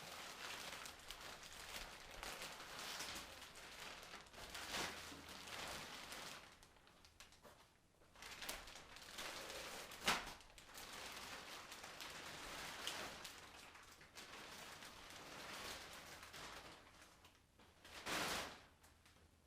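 Shipping carton and packing being handled and pulled away from a machine crate: irregular rustling and scraping, with a sharp knock about ten seconds in and a louder scrape near the end.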